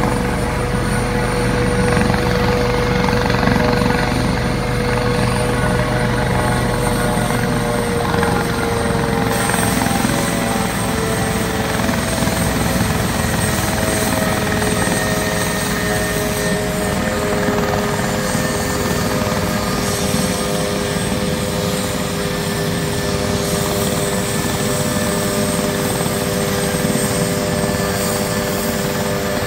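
Navy Panther twin-turbine helicopter running on the ground: a steady turbine whine over the dense low rumble of the rotor, with the whine slowly falling in pitch from the middle of the clip on.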